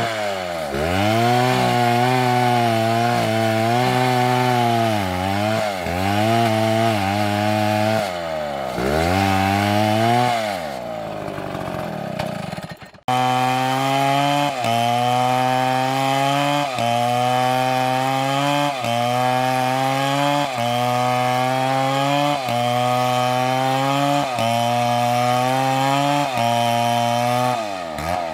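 Large STIHL chainsaw engine revving up and down several times. After an abrupt break about halfway through, it runs at full throttle cutting through a felled palm trunk, the pitch dipping and recovering about once a second as the chain loads in the wood.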